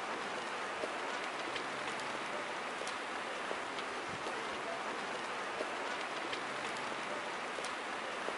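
Large building fire burning: a steady rushing hiss with scattered sharp crackles.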